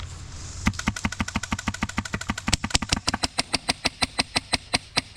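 Airsoft gun firing a rapid, steady string of shots, about ten a second, starting just under a second in and carrying on.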